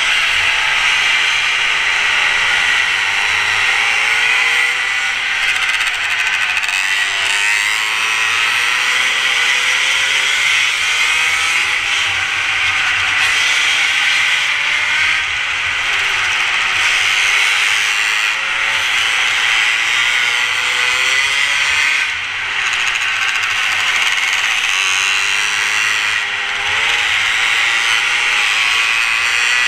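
Mini moto engine running at high revs, its pitch rising and falling again and again as the throttle comes off and back on, under a steady hiss.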